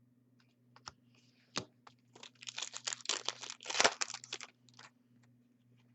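Hockey trading cards and their foil pack wrapper being handled. A couple of light clicks come first, then about two and a half seconds of dense crinkling and rustling.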